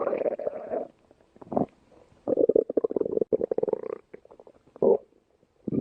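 A person's stomach growling: gurgling rumbles in four bouts with quiet gaps between, the longest lasting nearly two seconds in the middle.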